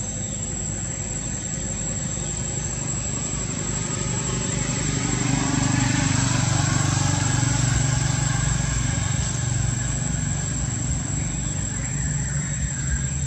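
A motor vehicle engine passing nearby, a low hum that swells about four seconds in, is loudest around six to eight seconds, then eases off.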